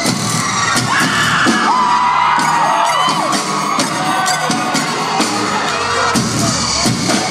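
Two drummers playing a live drum duo, a dense, steady run of drum hits, with crowd cheering and high whoops rising and falling between about one and a half and three seconds in.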